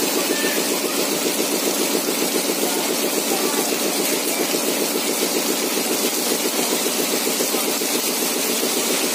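Heavy hail and rain pelting a brick-paved lane, a dense steady hiss. A fast, even throbbing sits low underneath it.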